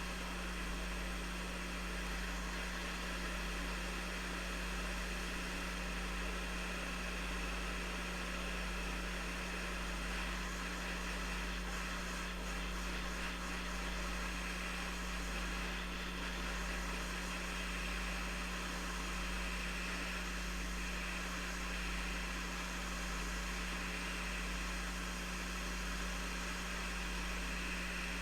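Hot air rework station blowing steadily, an even rush of air over a low steady hum, as it slowly heats the solder under a phone's charging connector.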